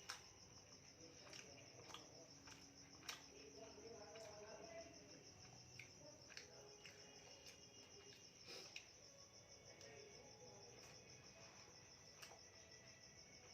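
Crickets chirring: a steady, high-pitched trill that runs on without a break. Faint scattered clicks come through over it.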